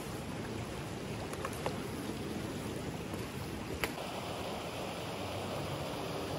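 Steady rush of a shallow mountain stream running between snow and ice, with a sharp click about four seconds in.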